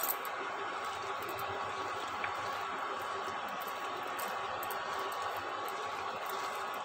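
Steady background hiss with a faint, even hum, and no distinct sound events standing out.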